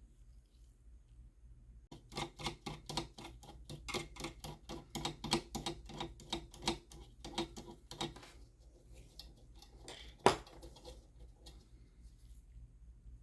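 A fast run of sharp mechanical clicks, about four to five a second, from about two seconds in until about eight, from work on the espresso machine's parts. Sparser clicks follow, with one loud sharp click about ten seconds in.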